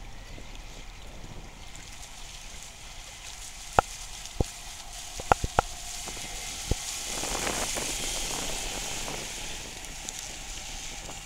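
Radio-controlled model speedboat running fast across the water: a steady hiss and splash of spray that swells for a few seconds past the middle as the boat sweeps close by. A handful of sharp clicks come between about four and seven seconds in.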